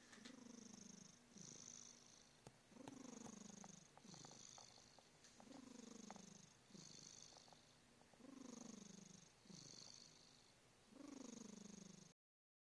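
A cat purring and snoring, faint, in slow breathing cycles: about every two and a half to three seconds a long falling purr comes, followed by a shorter one.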